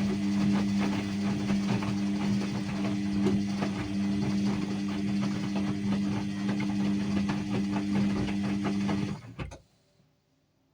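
Ariston washing machine running with a steady motor hum and a rattling, clicking texture, on a synthetics program with an 800 rpm spin. The sound stops abruptly about nine seconds in, followed by a single sharp click.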